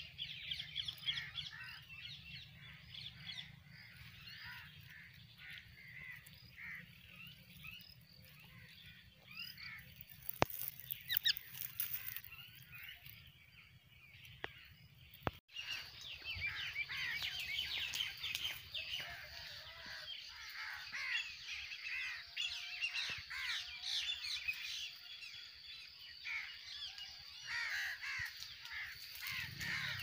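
Many birds calling at once: a dense chatter of short shrill calls and harsh squawks, which gets busier about halfway through. A few sharp clicks come about ten seconds in.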